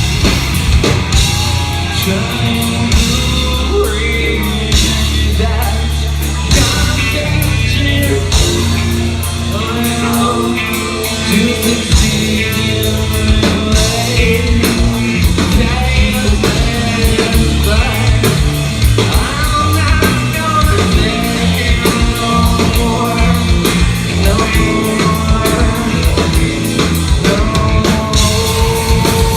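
Metal band playing live: drum kit, guitars and a singing lead vocal, loud throughout.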